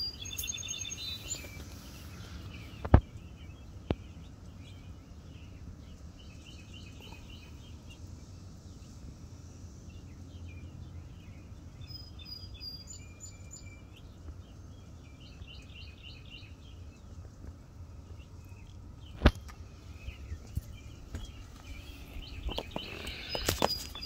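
Outdoor ambience of birds chirping on and off over a steady low background noise, broken by two sharp clicks, about three seconds in and again around nineteen seconds. Near the end, rustling from a hand handling the phone microphone.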